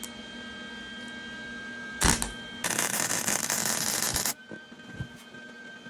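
A sharp click about two seconds in, then a welding arc crackling steadily for under two seconds before cutting off, as a short weld bead is laid on a minibike frame repair.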